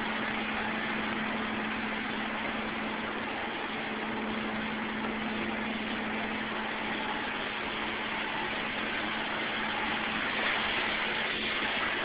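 Steady hum and hiss of paint-shop machinery running: a constant low tone under an even rush of air, with no change in pace.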